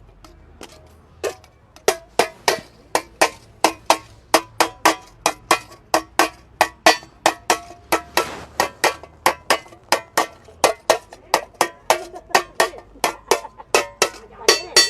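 Hammer blows on sheet metal, a steady series of ringing strikes about three a second, starting about two seconds in: the edge of a repaired metal vessel being folded down and hammered tight to make it watertight.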